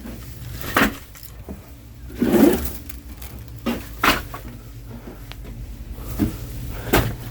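Split oak firewood logs knocking and clunking against one another as they are handled and stacked one at a time, several knocks a second or two apart, over a steady low rumble.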